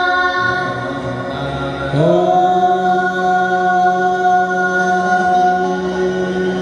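A group of children singing a Sanskrit Ganesh prayer in chorus. About two seconds in they settle on one long held note.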